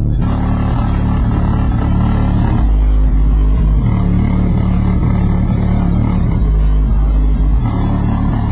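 Two 12-inch Rockford Fosgate T2 subwoofers in a compression enclosure, driven by a USAmps amplifier, playing bass-heavy music at high volume. The deep bass notes shift every second or so, with the lowest notes sounding about three seconds in and again about seven seconds in.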